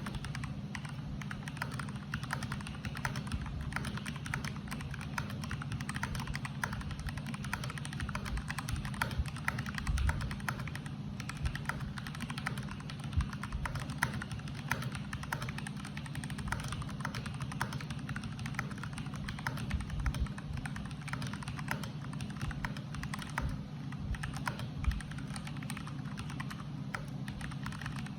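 Typing on a stock NJ80 AP mechanical keyboard: a fast, uneven stream of keystroke clicks, several a second, over a steady low hum.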